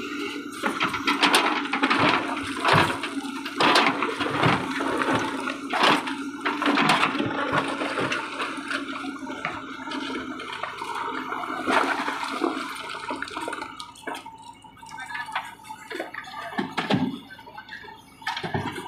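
JCB 3DX backhoe loader's diesel engine running steadily while its backhoe bucket digs into broken rock and soil, with stones scraping, knocking and pouring. The clatter is heaviest in the first twelve seconds or so and dies down near the end.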